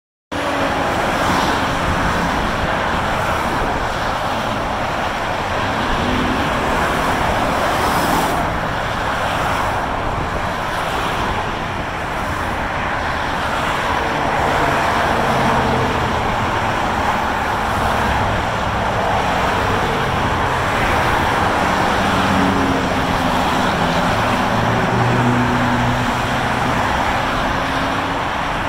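Steady noise of heavy multi-lane freeway traffic: tyre and engine sound from many cars passing below in both directions, with low engine hums from heavier vehicles in the second half.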